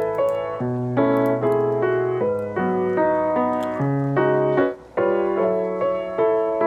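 Background music: soft piano chords and melody.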